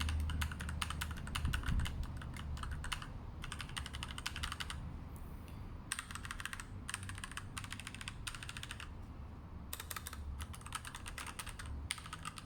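Fast typing on a Magegee budget mechanical keyboard with red linear switches: rapid runs of crisp, clear keystroke clicks, each run a second or two long, broken by short pauses.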